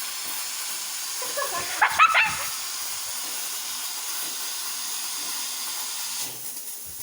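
Coffee maker hissing steadily with escaping steam, the hiss dropping away about six seconds in. A short high yelp-like cry about two seconds in.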